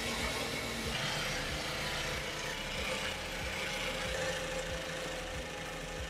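A 2009 GMC Sierra 1500's 5.3-litre V8 idling steadily, heard from under the truck near the starter and bellhousing. There is no twang from the starter gear against the flex plate: the rebuilt starter has fixed the noise.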